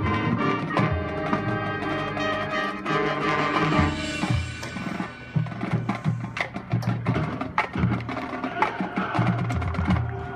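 Marching band playing: sustained brass chords give way about halfway through to a percussion-driven passage of sharp, rhythmic hits over short low notes.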